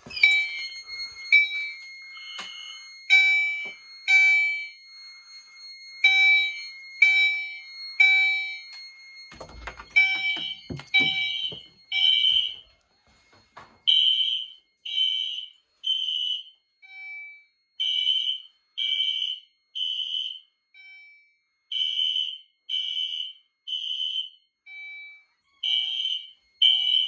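Gentex Commander 2 on its chime setting and System Sensor SpectrAlert Classic horn/strobe sounding together, coded to System Sensor sync, in the temporal code-3 pattern. Each cycle is three half-second alarm blasts about a second apart, then a pause, repeating. Chime tones ring along with the horn blasts, most plainly in the first half.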